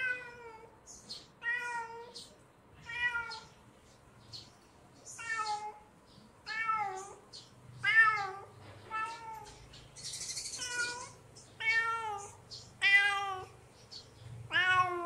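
Kitten meowing over and over, about one meow every second and a bit, each call rising and then falling in pitch: the insistent calling of a hungry kitten.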